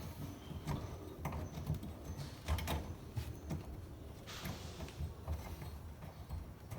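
Plumbing parts and tools being handled during a dishwasher air gap installation under a sink: scattered light clicks and knocks, with a short scraping hiss about four seconds in.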